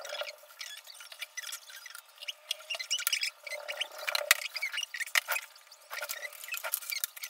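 Light clicks, taps and rustling as small sewing supplies, elastic strips and plastic packets, are handled and set down on a wooden desk, with a sharper click about four seconds in.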